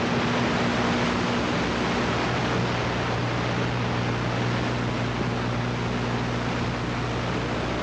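Steady hiss of blank VHS tape with a low, steady mains hum underneath, from a commercial-break gap in a VHS transfer.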